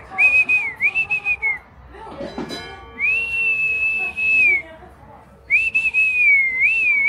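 A shrill whistle at nearly one high pitch, sounded in phrases: two short calls, a long held note that slides up at the start and down at the end, then a warbling call near the end. A short knock comes between the short calls and the long note.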